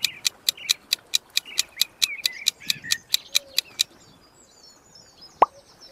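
Countdown-timer sound effect: rapid clock-like ticking, about five ticks a second, over bird chirping, stopping after about four seconds. Faint high chirps follow, then a single sharp click near the end.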